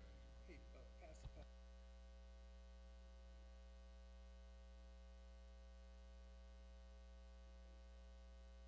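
Near silence with a steady electrical mains hum, and a few faint clicks and murmurs in the first second and a half.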